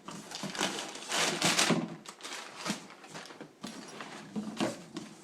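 Cardboard box and packaging being handled and rummaged through: irregular rustling with a few light knocks.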